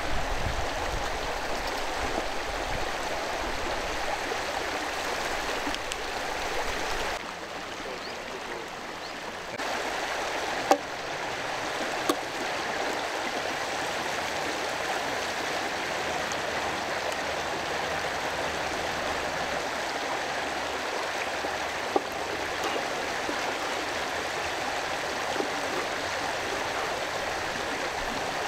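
A river running steadily, with a few sharp clicks or knocks over the water, one about eleven seconds in, another about a second later, and one more past twenty seconds.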